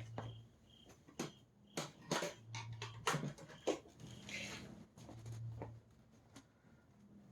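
Scattered sharp clicks and knocks of plastic vacuum cleaner parts being handled and fitted together, about a dozen in the middle seconds.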